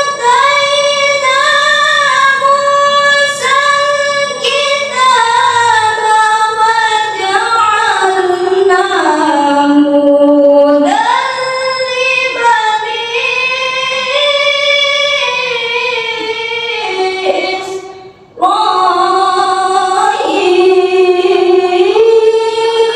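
Girl reciting the Quran in the melodic tilawah style into a microphone: long held, ornamented phrases with many turns of pitch. She breaks off briefly about eighteen seconds in, then starts a new phrase.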